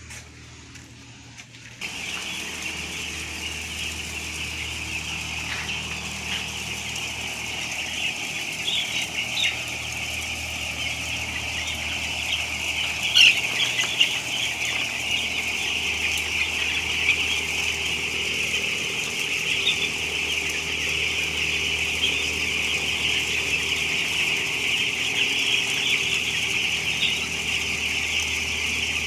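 A large flock of young broiler chicks, about eight days old, peeping continuously in a dense chorus that starts suddenly about two seconds in, over a steady low hum.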